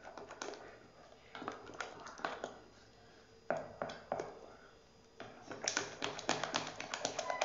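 Silicone spatula stirring a thick, creamy brigadeiro mixture in a metal saucepan, scraping and tapping against the pot's sides and bottom in irregular clusters of clicks.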